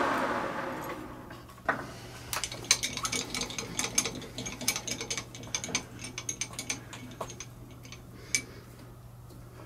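Machine shop noise from the lathe dies away over the first second and a half. Then comes a scattered run of light metallic clicks and rattles, with a steady low hum underneath.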